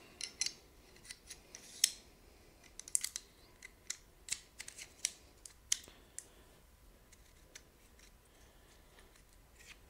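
Small metallic clicks and clinks of a Luger P08's steel toggle assembly and breechblock being handled and fitted back into the barrel extension's fork. An irregular run of quick clicks fills the first six seconds, and only a few come after.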